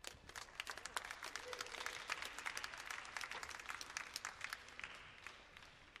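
Applause from a sparse audience, separate claps audible, starting abruptly, swelling and then thinning out near the end; it greets the finish of a hunter round.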